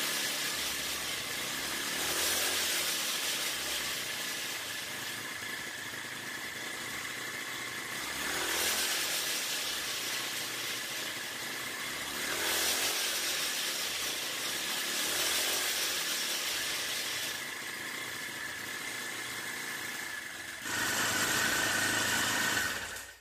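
Small 49cc four-stroke bicycle engine running and being revved with the twist throttle, swelling up and back down several times, with the longest, loudest rev near the end before the sound cuts off suddenly.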